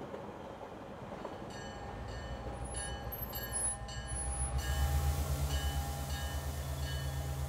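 Chicago L train car running, its low rumble swelling about halfway through. Short high ringing tones repeat about twice a second over it.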